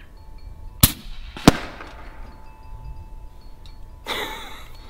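A .30-calibre PCP air rifle firing a slug at ballistic gel 100 yards away: two sharp cracks about two-thirds of a second apart, the second the louder with a short ringing tail, then a short rushing noise near the end.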